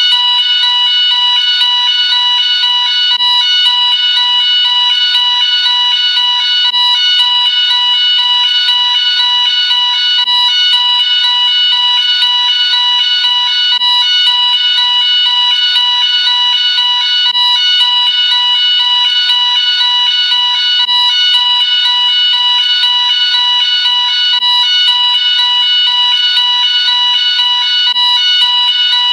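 Gent S-Quad fire alarm sounder going off continuously: a loud steady high tone with other tones pulsing rapidly and evenly over it.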